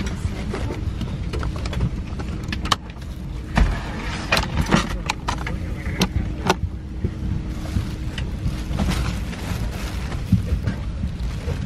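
Steady cabin hum of an Airbus A321neoLR parked at the gate, with a series of sharp plastic clicks and knocks from the seatback tray table and its latch being handled.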